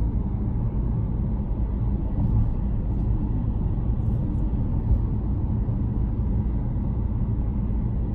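Steady low road rumble heard from inside a moving car driving at speed, tyre and engine noise without changes.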